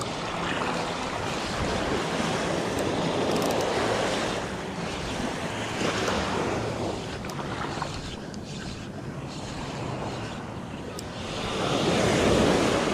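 Small waves breaking and washing up a sandy beach, swelling and ebbing, with the biggest wash near the end; wind buffets the microphone throughout.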